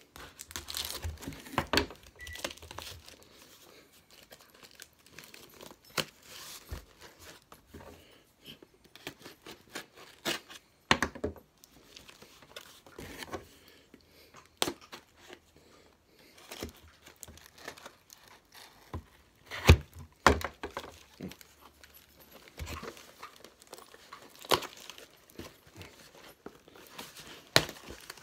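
A cardboard package being cut open with a box cutter and torn apart by hand: irregular scraping, crinkling and tearing with scattered sharp knocks, the loudest about twenty seconds in.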